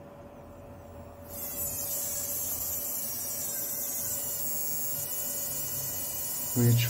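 Fuel injector driven by a 12 V square wave from a function generator, its needle chattering open and shut hundreds of times a second as a high buzzing whine. The whine starts about a second in, and its pitch shifts as the drive frequency is turned up from around 260 Hz to about 500 Hz.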